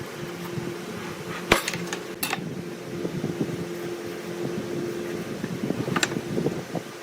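A steady low hum with sharp knocks, about a second and a half in, at about two seconds and at six seconds, and a patter of lighter clatter in between.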